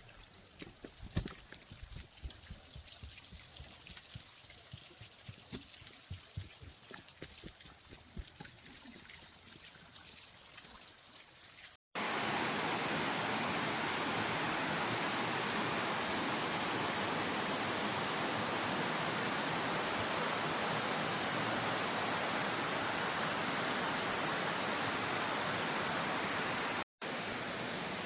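Rushing water of a waterfall: a loud, steady, even rush that begins abruptly about twelve seconds in. Before it, a quiet stretch with scattered low thumps.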